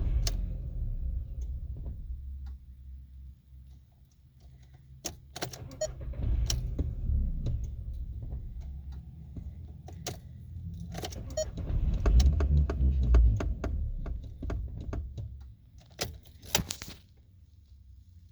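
Car keys jangling on their ring with sharp clicks, as the ignition key of a 2004 VW New Beetle is worked; the car will not start, typical of an immobilizer fault. Uneven low rumbling comes and goes, loudest about two-thirds of the way through.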